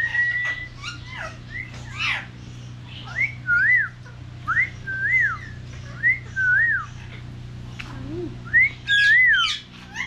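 Caged parrots whistling: a string of clear whistles, each rising and falling, repeated every half-second to a second, with sharp chirps mixed in, over a steady low hum.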